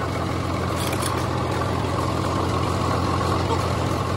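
An engine idling steadily, a constant low hum that does not change.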